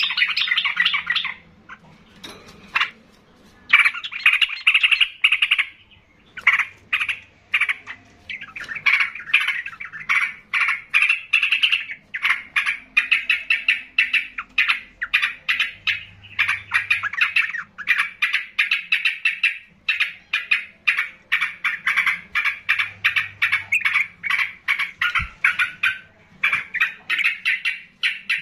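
Caged yellow-vented bulbul (trucukan) singing loudly in long runs of rapid, chattering notes. After a short lull a few seconds in, the song goes on almost without a break, phrase after phrase.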